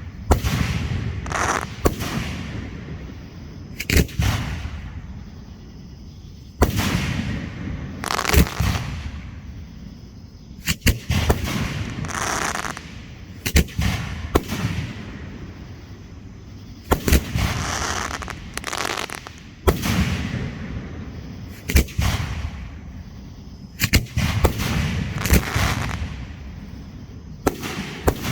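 Hand-fired fireworks going off one after another: sharp bangs every one to two seconds, each followed by a drawn-out crackling wash.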